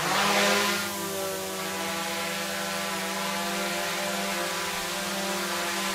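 A DJI Mavic-series quadcopter taking off: its motors rise in pitch at the very start, then settle into a steady hover hum and buzz made of several steady tones.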